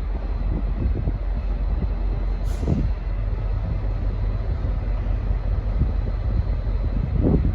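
V/Line N class diesel-electric locomotive idling at the platform with a steady low rumble, with a short hiss about a third of the way in and brief swells of noise then and near the end.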